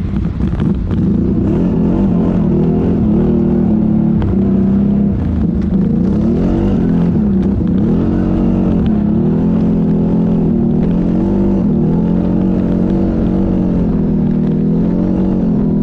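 ATV engine running under changing throttle, its pitch rising and falling over and over as the rider works it along the trail.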